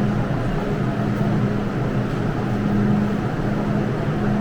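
MTR M-train standing at the platform: a steady low hum and rumble that swells and fades every second or so.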